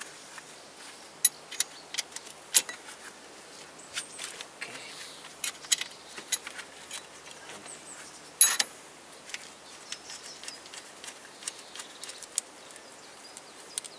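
Irregular light clicks and taps of hand work in a car's engine bay, from a socket wrench on a wiring-harness support bolt and the harness being handled. A few sharper clicks stand out, the loudest a little past halfway.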